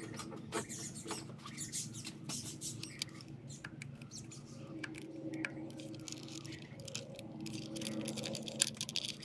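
Small irregular plastic clicks and scratches of a flat-tip screwdriver prying the electrical connectors off ignition coils, over a steady low hum.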